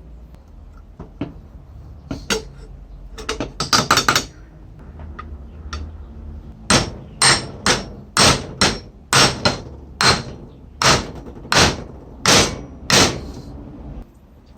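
A hammer striking metal: a few scattered knocks and a quick cluster, then from about halfway a steady run of about a dozen ringing strikes, roughly two a second.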